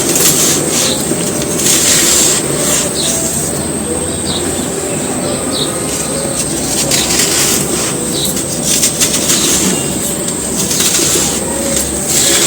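Dry, soft-pressed cones being crumbled by hand, crunching in irregular bursts over a steady hiss.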